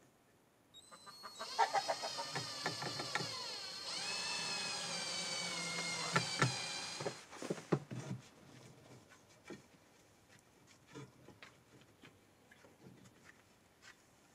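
Cordless drill motor whining for about six seconds, its pitch sliding down and then holding steady, with a few sharp clicks as it stops. Afterwards only faint, scattered knocks.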